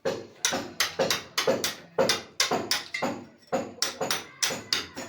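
Hammer striking repeatedly during plumbing work, a quick run of sharp knocks at about three blows a second, each with a short ring.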